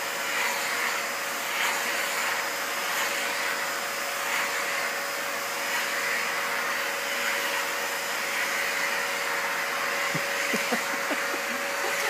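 Vacuum cleaner running steadily with a constant whine as it is used on a greyhound's coat.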